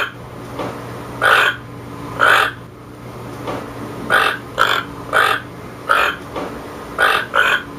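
Toucan giving short, harsh calls, about eight in all, spaced irregularly with some coming in quick pairs.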